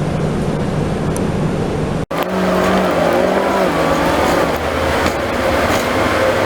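Inside a city bus under way: steady engine drone and road noise, broken by a brief sudden dropout about two seconds in, after which the engine's pitched drone comes back with tones that shift as it pulls.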